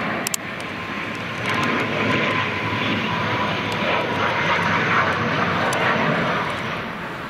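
Twin-turboprop airliner flying low overhead on landing approach: a steady propeller-and-engine drone with a faint held tone. It swells louder about a second and a half in and stays up. A few sharp clicks come at the very start.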